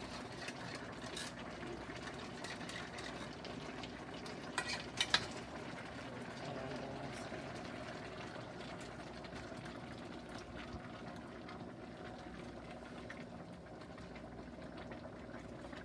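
Steady sizzling and bubbling from a large aluminium pot of browned oxtails as canned coconut milk is poured in. A few sharp knocks come about five seconds in.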